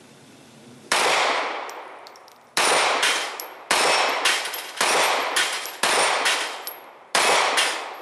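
Smith & Wesson 3913NL 9mm pistol firing six shots at an unhurried pace, about one a second, each followed by the clang of a steel plate target being hit.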